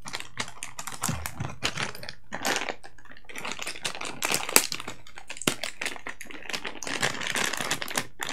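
Small plastic packaging bag crinkling and rustling as it is handled and opened by hand: an irregular run of crackles, with a sharper crackle about halfway through.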